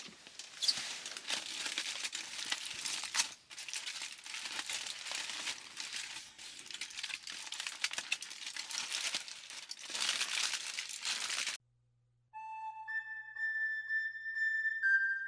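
Dense crackling noise full of small clicks that cuts off suddenly about eleven and a half seconds in. After a brief silence, flute music begins.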